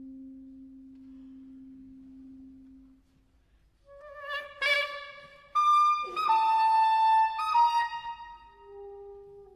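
Solo soprano saxophone: a long low note fades away, and after a brief pause a string of separate notes follows, leaping up to loud high notes with a sharp accent. It ends on a softer, lower held note.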